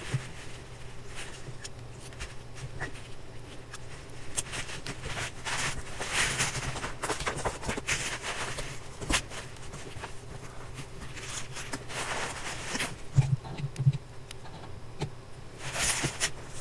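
Pen nib writing on paper, scratchy strokes in several runs, over a low steady hum.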